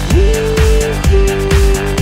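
Pop dance music with a steady beat and long held notes.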